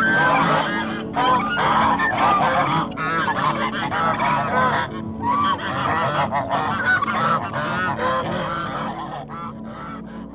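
A flock of geese honking, many calls overlapping, fading away over the last couple of seconds.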